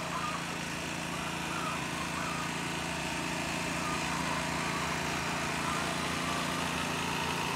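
Small engine running steadily with an even hum. A few short hen calls come through over it.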